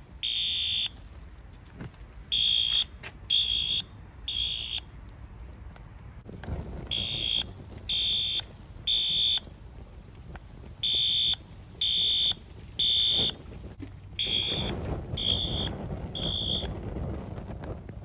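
Wheelock AS fire alarm horn/strobe's horn beeping in groups of three with a pause between each group, the temporal-three evacuation pattern, still sounding while the burnt unit is in flames. A rushing noise of flames swells in the last few seconds.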